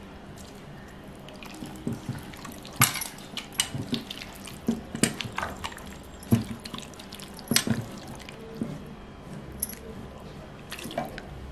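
Bare hands squeezing and mixing chicken pieces in a thick yogurt-and-spice marinade in a steel pot: irregular wet squelches and sharp clicks, roughly one every second or so.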